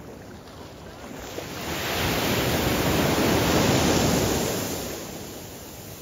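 Ocean surf: one wave surges in and breaks, building over about a second, loudest in the middle, then washing back and fading.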